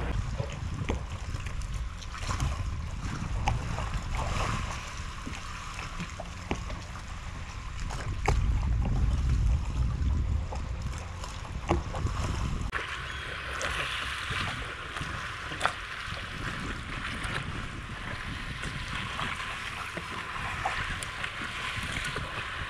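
Wind rumbling on the microphone over water lapping, with scattered light clicks and knocks. The sound changes abruptly about halfway through.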